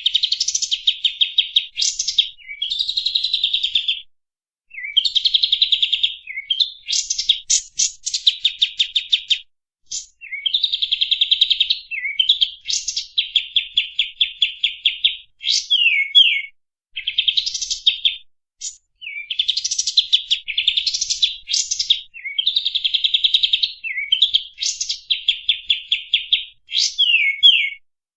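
Kapas tembak songbird singing a long string of rapid, high chattering trills. The phrases last one to two seconds with short pauses between them, and several end in quick downward slurs.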